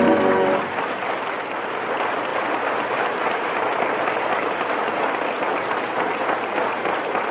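Studio audience applauding in an old radio broadcast recording, after the last chord of a music cue cuts off about half a second in.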